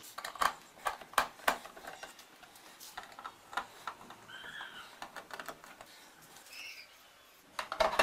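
Light, scattered clicks and taps of a screwdriver and the plastic top cover of a Super Asia spin dryer being worked loose, with a louder plastic clatter near the end as the cover comes up.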